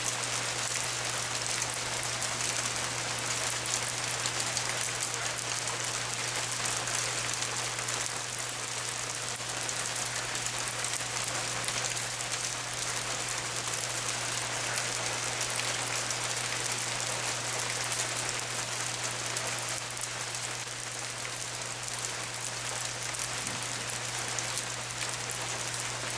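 Hail falling and clattering on hard surfaces: a dense, steady patter of countless small ticks, with a steady low hum underneath.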